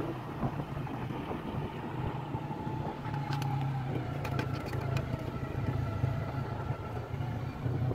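Motorcycle engine running steadily, with a handful of sharp clicks near the middle.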